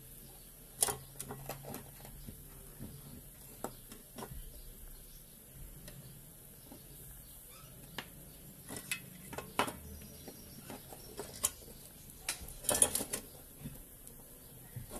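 Scattered clicks and light knocks from hands handling a UV sterilizer lamp tube, its plug-on end connector, its ballast circuit board and a small sheet-metal housing on a workbench, with a quick run of louder clicks near the end.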